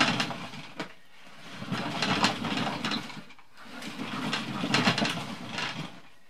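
A compact table saw riding on a homemade wooden dolly built from offcuts, pushed and pulled over an OSB floor: the dolly's wheels make a rough rolling noise, three back-and-forth runs with short pauses between. The wheels don't track perfectly straight.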